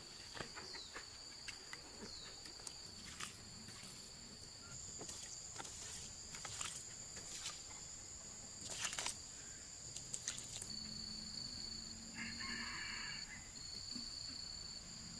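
Insects trilling steadily at two high pitches, with scattered light clicks and taps over them.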